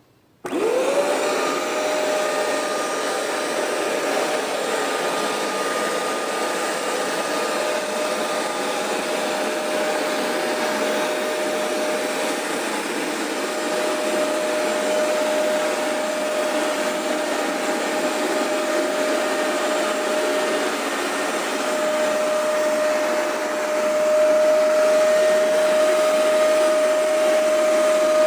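Hoover Maxextract 77 carpet cleaner switched on: its motor whine rises quickly to a steady pitch, then it runs steadily with a loud suction rush, getting a little louder near the end.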